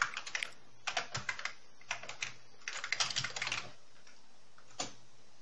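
Keys of an Amiga 1200's built-in keyboard clicking as a shell command is typed, in quick runs of keystrokes with short pauses. About five seconds in there is a single harder keystroke, the Return key entering the command.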